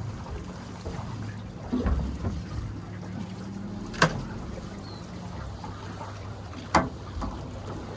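Small boat on the water: a steady low hum with water trickling and lapping, a few dull thumps about two seconds in, and two sharp knocks, about four and seven seconds in.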